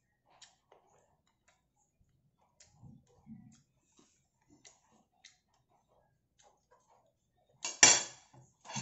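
Faint, scattered soft clicks and smacks of eating barbecue by hand off a plate. A short, loud vocal sound comes near the end.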